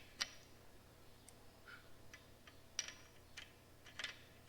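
Sharp metallic clicks, about six of them at uneven intervals, from a hand tool being turned in a threaded hole while a broken bolt is worked out.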